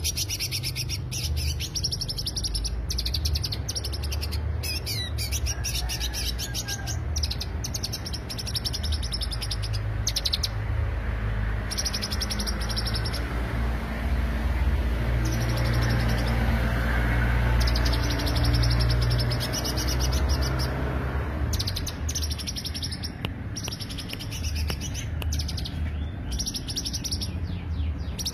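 Green leafbird (cucak hijau) singing: very fast, high chirping trills in long runs broken by short pauses, over a steady low hum.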